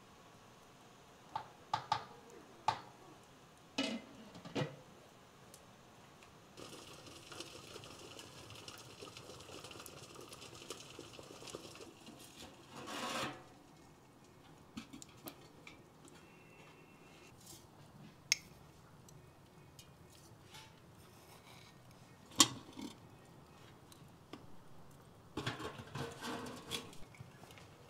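Metal cookware handled at a wood stove: scraping and rubbing with scattered clinks and knocks, including a rasping stretch in the middle and a sharp knock about two-thirds of the way through.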